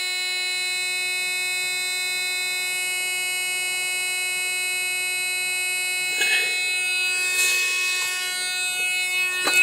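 Steady electric buzz of a Freightliner truck's dash warning buzzer sounding after key-on with the engine not yet running, typical of the low-air-pressure warning before the air system has built up. Some rustling comes in over the buzz in the second half.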